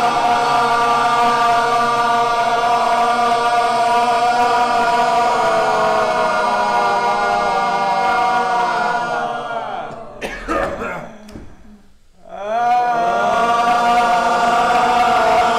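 Throat-singing drone: voices hold one low pitch with strong overtones ringing above it. About ten seconds in the drone fades out, then starts again a second or so later.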